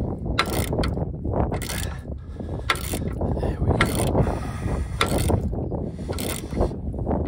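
Socket ratchet wrench tightening the nut on the bolt through a Range Rover L322's new rear upper suspension bush: a short run of pawl clicks on each back-swing of the handle, repeating about once a second.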